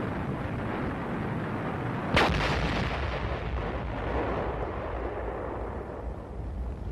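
A single loud explosion about two seconds in that rumbles away slowly, over a continuous low rumble.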